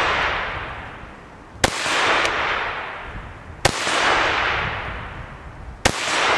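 CZ 512 semi-automatic rimfire rifle in .22 WMR firing three shots about two seconds apart. Each sharp crack is followed by a long rolling tail that swells and then fades.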